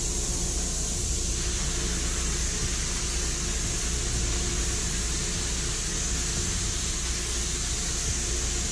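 Gravity-feed paint spray gun hissing steadily on compressed air as a wet coat is laid on over a metallic base coat, with a low steady hum underneath.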